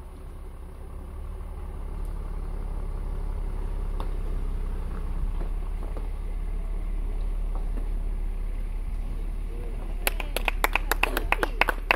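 A low steady rumble, then about ten seconds in, hand clapping: a quick run of sharp, uneven claps.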